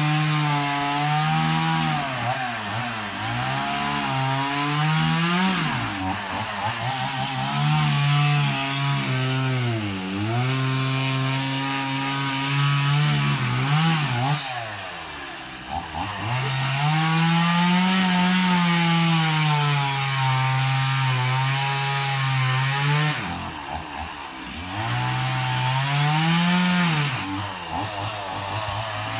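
Two-stroke chainsaw running hard while cutting through a felled coconut palm. Its engine pitch rises and falls over a few seconds at a time as the throttle and cutting load change, with short drops in loudness about fifteen and twenty-four seconds in.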